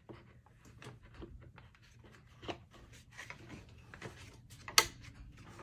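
Plastic stroller tray being handled and slid on and off the frame: light rubbing and small clicks, with one sharp click a little under five seconds in.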